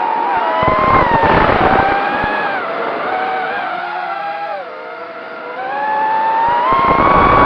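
FPV racing quadcopter's brushless motors whining. The pitch rises and falls with the throttle: it sinks lowest and quietest about four to five seconds in, then climbs back near the end, with bursts of low rumble at the start and near the end.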